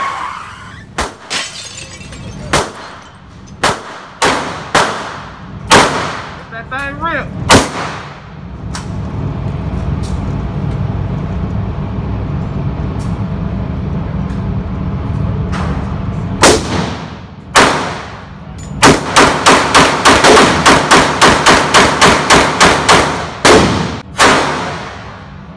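Gunshots from a compact red-dot-sighted firearm fired on an indoor range, each crack followed by a short echo. A handful of single shots come in the first eight seconds, then a steady low hum, then a couple more shots and a quick string of about fifteen shots at roughly three a second, with one last shot near the end.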